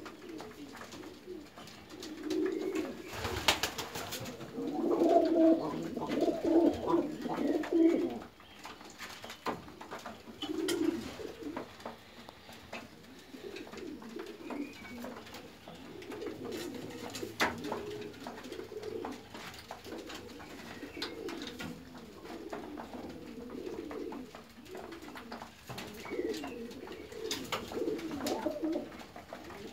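Domestic pigeons cooing again and again, several birds overlapping, loudest from about three to eight seconds in, with a few sharp taps among the calls.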